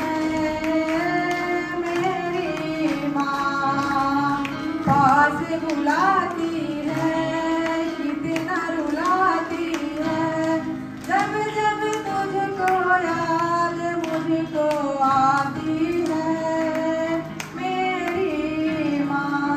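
Music: a high singing voice carries a melody with frequent pitch slides over steady instrumental accompaniment.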